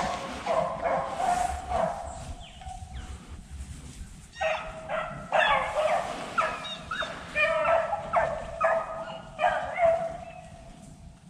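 Beagles giving tongue on a rabbit's trail: a string of repeated pitched barks and bawls, with a dense run of calls from about four seconds in that fades near the end.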